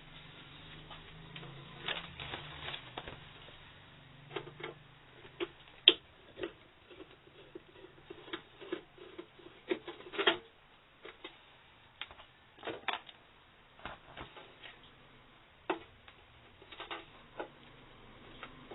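Irregular small clicks and taps of hard plastic being handled, with a sharper click about six seconds in and a louder one near the middle.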